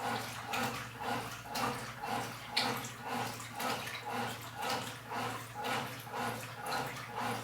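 Top-loading washing machine agitating its wash load, water sloshing in a regular rhythm of about two strokes a second over a steady low hum.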